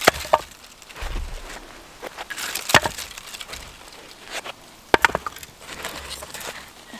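Cut firewood being handled: a few sharp wooden knocks and cracks at irregular intervals, the loudest just after the start, near three seconds in and twice around five seconds, with some scraping and rustling between.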